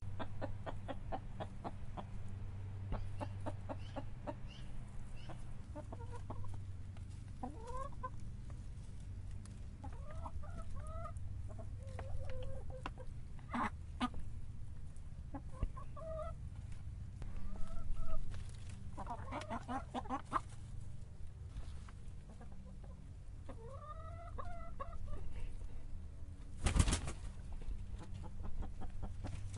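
Domestic chicken clucking: short, arched clucks come every few seconds over a steady low hum. Many small clicks and taps fill the first few seconds, and a single sharp knock comes near the end.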